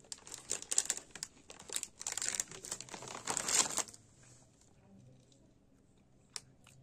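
Plastic chip packet crinkling and rustling as it is handled, for about four seconds, then quiet apart from a single sharp click near the end.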